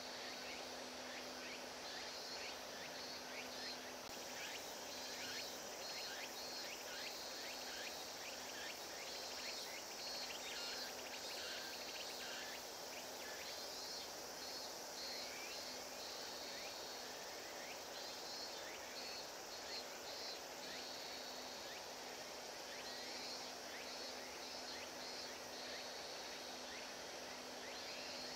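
Outdoor ambience of insects chirping in short repeated pulses, with a steady low hum and a constant background hiss.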